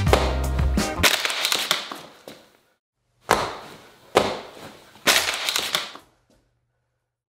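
Music fades out over the first two seconds or so. Then come three hard stomps about a second apart, a foot coming down on a VR headset lying on a hard tiled floor, each hit trailing off over most of a second.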